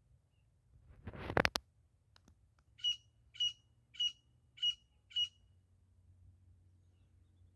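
Grey francolin (grey partridge) giving five short, sharp calls in an even series, a little over half a second apart; the title marks it as the female's call used for hunting. Before the calls, about a second in, comes a brief loud noise swell that ends in a click.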